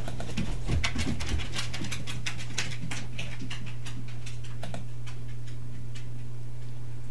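Irregular runs of small clicks from a computer mouse's scroll wheel and button as pages are scrolled and menu sections clicked open, thinning out after about five seconds, over a steady low hum.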